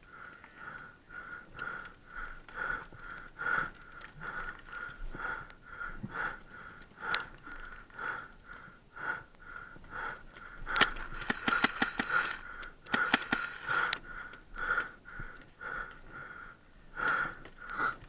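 Fast, rhythmic wheezy breathing through a paintball mask, a thin whistling pulse about three times a second. About eleven and thirteen seconds in come two quick bursts of sharp paintball marker shots.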